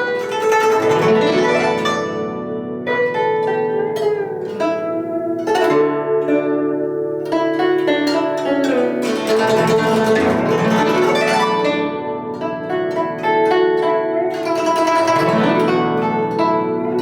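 Instrumental music on plucked strings: quick runs of plucked notes ring over held lower notes.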